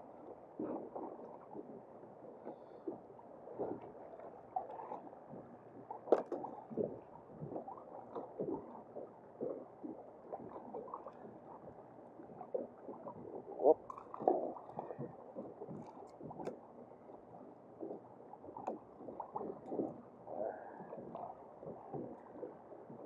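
Choppy water lapping and slapping against a kayak hull in short, irregular surges, with a few sharp clicks and knocks.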